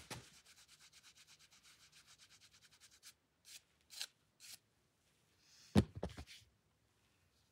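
Rapid scrubbing strokes on rock, about ten a second for some three seconds, as a bouldering brush cleans the starting holds. Three short scuffs follow, then a single louder knock about six seconds in.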